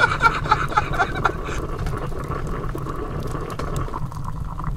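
Stovetop coffee percolator perking, quick irregular bubbling blips that fade after about a second, then hot coffee poured from it into a mug, over a steady low rumble.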